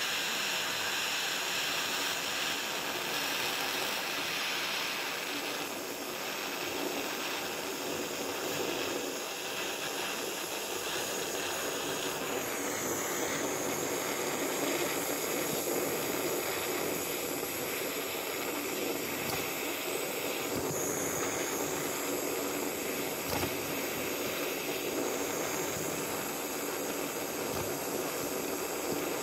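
Small handheld gas blowtorch burning with a steady hiss as its flame melts solder onto lead sheet.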